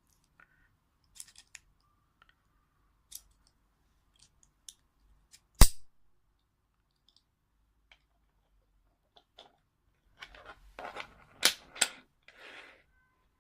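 Plastic side-release dog-collar buckle being handled: scattered small clicks, one sharp loud snap about five and a half seconds in, and a quick cluster of clicks and rattling near the end.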